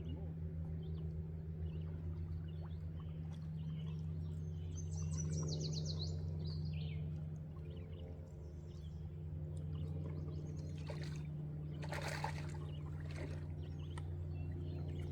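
A bird sings a quick run of falling chirps about five seconds in, over a steady low hum. Near the end there is a short rush of water-like noise.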